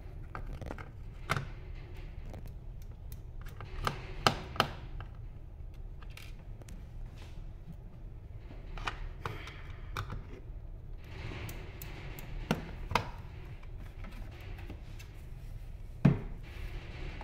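A screwdriver and screws clicking and tapping against the metal back chassis of a touch POS terminal as screws are worked out. The sharp clicks come scattered in small clusters, and the loudest knock falls about a second before the end.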